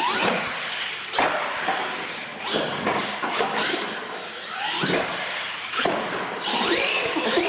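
RC monster trucks driving on a concrete floor: motor whine rising as they speed up, tyre noise, and several sharp knocks as the trucks hit and land off the wooden ramps.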